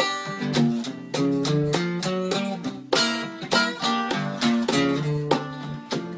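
Archtop guitar played as a solo instrumental passage: a steady run of plucked single notes and chords, several a second.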